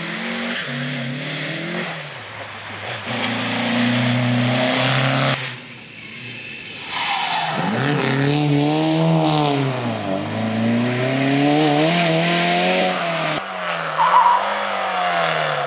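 Historic rally cars' engines, among them a Volvo 140-series saloon, at hard throttle in three passes cut together. In the first, the engine note is held high and then cut off abruptly. In the middle pass, the revs rise and fall over and over as the throttle is lifted and reapplied. Near the end another car's engine falls and rises in pitch, with a brief loud spike.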